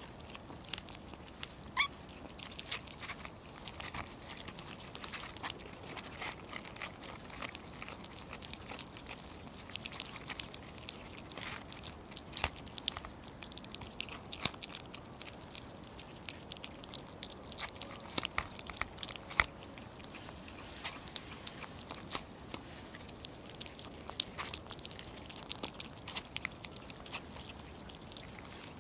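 Kittens eating boiled egg from paper plates: a continuous, irregular run of small chewing clicks and mouth smacks, with an occasional sharper click.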